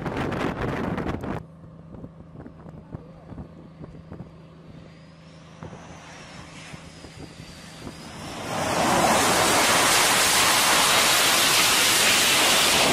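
Jet engine noise on an aircraft carrier flight deck: loud rushing jet noise for the first second or so, then a sudden cut to a quieter deck with a low hum and a faint, wavering distant jet whine. From about eight seconds in, an F/A-18 Hornet's jet engines swell to a loud, steady roar as it rolls in on an arrested landing.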